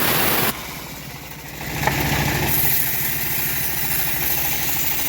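Engine of a homemade bandsaw sawmill running: the loud sawing noise stops abruptly about half a second in, there is a sharp click near two seconds, then the engine settles into a steady idle.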